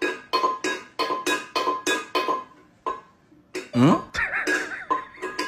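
Metal service bell struck over and over by a cat's paw, about four rings a second. The ringing stops for about a second near the middle, a cat gives a short meow that rises and falls in pitch, and the rapid ringing starts again.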